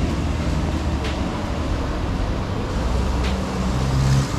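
A motor vehicle engine idling, a steady low hum, with road traffic noise and a couple of faint clicks.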